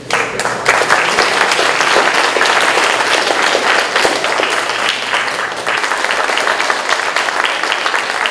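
An audience applauding: the clapping breaks out all at once and keeps going.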